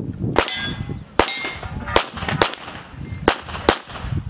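A 9mm CZ 75 SP-01 Shadow pistol firing six shots at an uneven pace, some in quick pairs, during a practical shooting stage. The first shots are followed by a ringing clang from struck steel targets.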